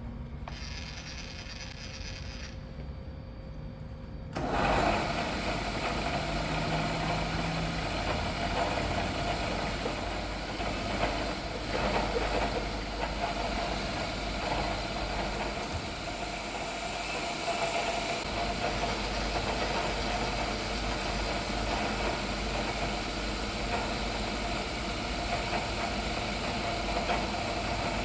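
Workshop machinery starts abruptly about four seconds in and runs steadily, with an engine-like hum and a noisy body.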